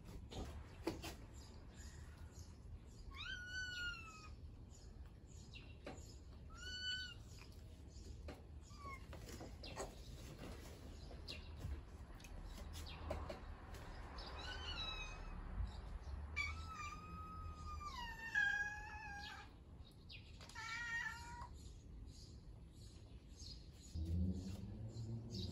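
A cat meowing several times, with pauses between the calls; one longer meow falls in pitch.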